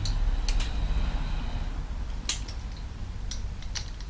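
A few short, sharp clicks and taps of small objects being handled, over a low hum that fades after the first second.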